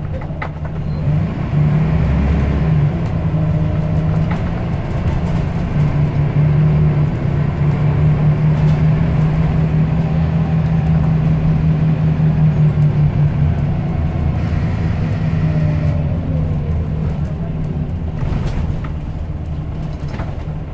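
Scania L94UB bus's diesel engine heard from on board, running under load as the bus drives: a strong steady hum whose pitch rises as it gathers speed and drops away a few seconds before the end.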